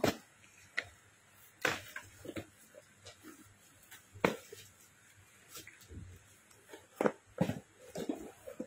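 Sandals being picked up off a wooden floor and handled: scattered light knocks and taps at irregular intervals, with the loudest ones near the middle and toward the end.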